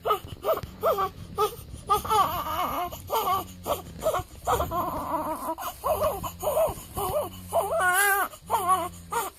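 Newborn baby crying in a run of short, wavering cries broken by catches of breath, with a louder, higher cry near the end.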